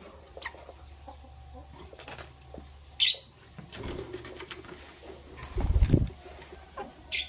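Lovebirds: two short, sharp high chirps, one about three seconds in and one near the end, and a loud fluttering burst of wings lasting about half a second a little before that, with faint small clicks and scratches in between.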